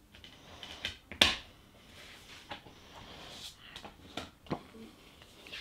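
A plastic Blu-ray case, its disc and card inserts being handled: a series of light clicks and taps, the sharpest just over a second in, with soft rustling between them.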